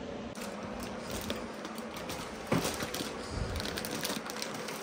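Plastic tortilla bag and aluminium-foil-wrapped packets crinkling as they are picked up and carried, with a dull thump about two and a half seconds in.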